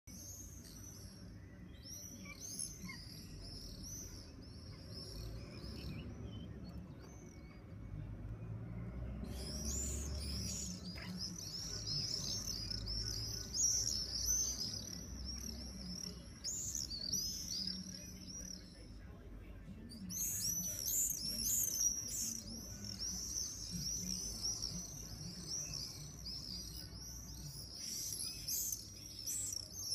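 A flock of swallows calling shrilly overhead, many birds at once, in waves that swell and fade: a thinner group near the start, a pause of a few seconds, then two long, dense passes. A low steady rumble lies underneath.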